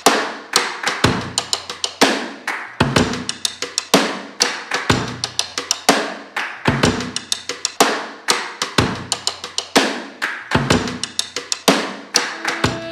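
Background music: a looping drum-kit beat of kick drum, snare and quick percussion hits, steady and evenly repeated.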